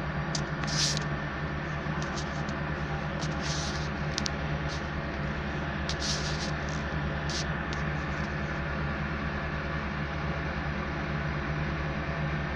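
Diesel engine of road-building machinery running steadily with a low, even drone, with a few short high hisses and clicks in the first half.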